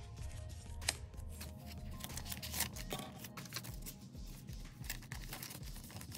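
Clear plastic zippered cash envelopes crinkling and paper bills rustling as they are handled, with many small irregular clicks and rustles. Faint background music runs underneath.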